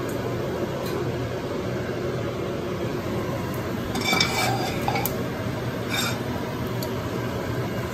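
A few light clinks of a plate and a cooking utensil against each other and the stovetop, clustered about four to six seconds in, over a steady hiss and low hum.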